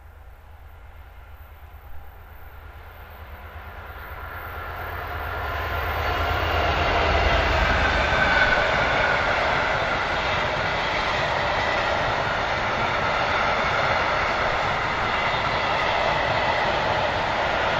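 Class 66 diesel locomotive's two-stroke EMD engine rumbling as it approaches, growing louder over the first several seconds. A long train of empty flat wagons then rolls past with steady wheel-on-rail noise.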